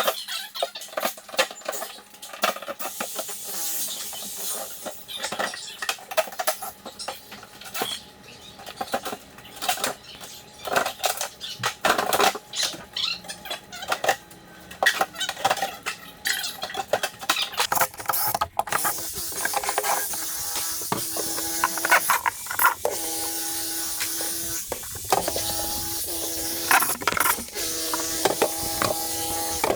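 Demolition clatter: many sharp knocks and crashes of tile and debris being broken and falling. A hissing noise joins about two-thirds of the way in, and near the end a droning tone starts and stops repeatedly.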